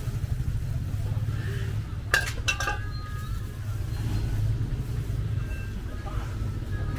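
A quick run of sharp metallic clinks about two seconds in, ringing briefly, over the steady low rumble of an idling engine.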